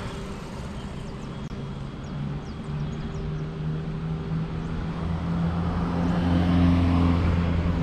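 A motor vehicle engine droning steadily nearby over a constant rush of road noise. The engine hum gets louder through the second half.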